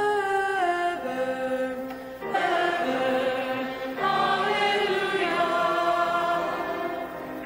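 Cantors singing a chanted responsorial psalm in long held notes that step between pitches, with fresh phrases starting about two and four seconds in.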